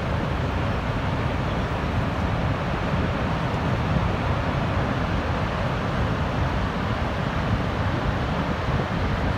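Deep, steady rush of water going over Niagara Falls.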